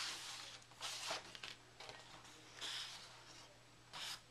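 Faint rustling of paper: cut cardstock pieces being handled and shifted, in four short bursts.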